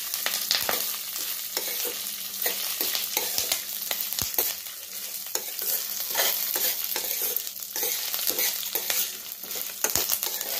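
Urad dal, dried red chillies and curry leaves sizzling in hot oil in a stainless steel kadai, being sautéed while a steel ladle stirs and scrapes the pan with frequent short scraping clicks over a steady hiss.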